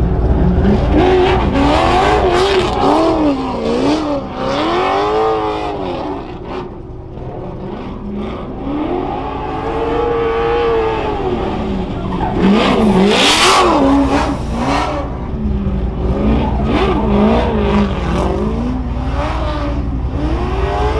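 Drift car engine revving up and down over and over, with one long climb and fall in pitch in the middle, as the car is driven around the course. A brief harsh burst of noise comes about two-thirds of the way through.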